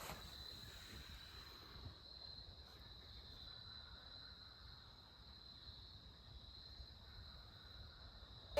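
Near silence: faint background with a thin, steady high-pitched tone.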